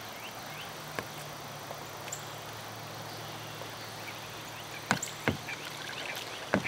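Steady outdoor hiss with a low hum for the first few seconds, broken by a few sharp, short knocks: one about a second in, a close pair about five seconds in, and one more near the end.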